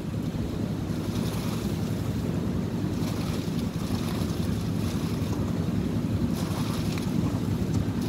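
Steady low rumble of a portable concrete mixer's engine running, with wind buffeting the microphone.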